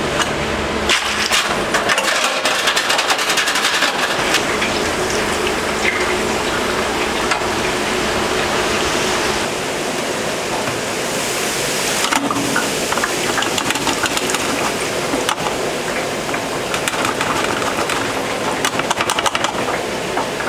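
Deep-fryer oil sizzling and crackling densely as a basket of raw Bintje potato fries is pre-cooked in it at 135–140 °C.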